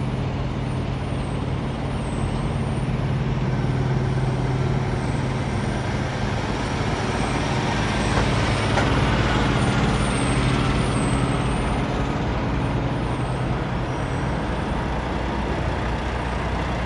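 Semi-trucks' diesel engines idling, a steady low drone with a wash of noise over it.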